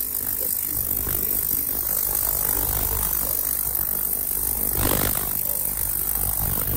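Ultrasonic cleaner running: a steady hum with a harsh high hiss, the ultrasonic interfering with the audio recording. A brief swell of noise about five seconds in.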